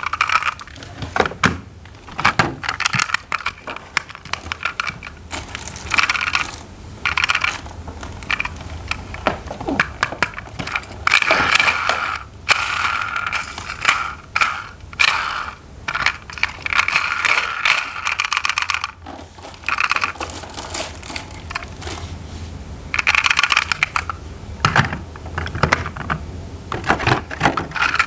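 Plastic toy parts and packaging being handled: irregular bursts of clicking, clinking and scraping.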